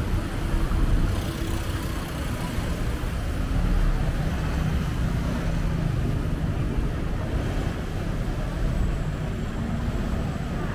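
Steady city road traffic: engines and tyres of passing vehicles, with louder swells as vehicles go by about a second in and again around four seconds in.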